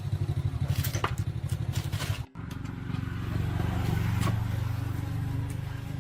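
Motorcycle engine idling with a rapid, even pulsing. The sound breaks off for an instant a little over two seconds in and then resumes.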